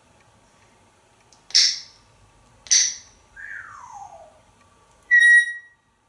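African grey parrot calling: two short harsh squawks, then a whistle that slides down in pitch for about a second, and near the end a short, clear whistled note.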